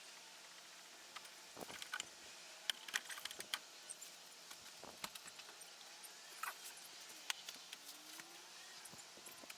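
Faint, scattered clicks and light knocks of tools and car parts being handled, with a few brief swishes.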